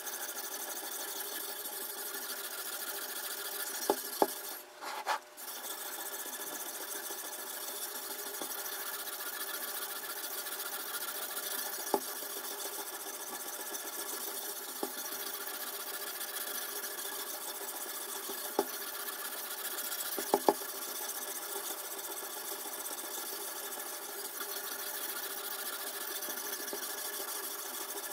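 Abrasive sharpening stone on a guided-rod knife sharpener rubbing steadily back and forth along a chef's knife blade, with a few sharp clicks as the rod and stone knock against the system.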